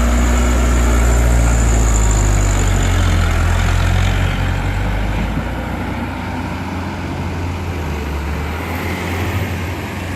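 Heavy diesel engine of earthmoving machinery running steadily with a deep drone, easing slightly about halfway through.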